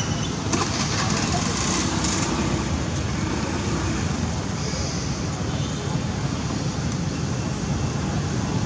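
Steady outdoor background noise, a dense rumble and hiss like distant traffic, with faint voices mixed in.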